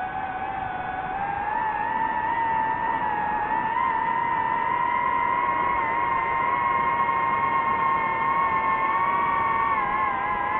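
DJI FPV drone's motors and propellers whining in flight. The whine climbs in pitch over the first couple of seconds, then holds steady, with a brief dip and wobble near the end.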